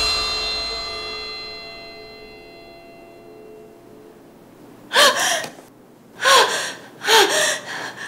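A ringing music chord fades away over the first few seconds. Then a woman gives three sharp, frightened gasps, each falling in pitch, about a second apart.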